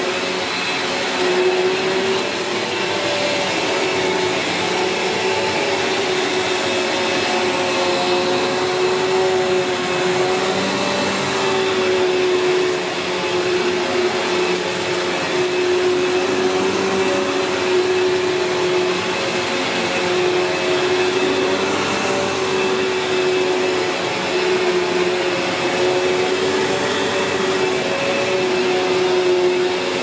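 Sanyo SC-A7AX 1200 W bagged upright vacuum cleaner running continuously while it is pushed back and forth over carpet, its brush roll driven by a new belt. A steady motor whine with a faint hiss, its pitch wavering slightly.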